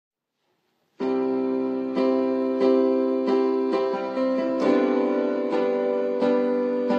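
Piano or electric piano playing an instrumental introduction: sustained chords with a new chord or note struck roughly every two-thirds of a second, starting about a second in after silence.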